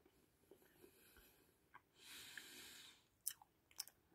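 Faint chewing of a blue punch SweeTARTS Extreme Sour Chewy candy, with a soft breath about two seconds in and a few sharp wet mouth clicks near the end.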